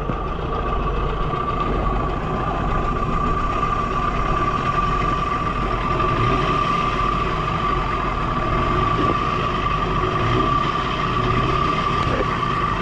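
Mercury Sea Pro outboard motor running steadily with its lower unit in a drum of water, the propeller churning the water. A steady high whine sits over the engine sound.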